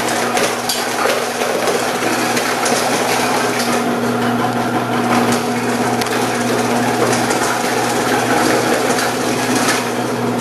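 Electric vegetable processor (OMCAN HLC 300) running with a slicing disc while carrots are pushed down the side chute and crunch steadily as they are cut into slices, over the motor's constant hum.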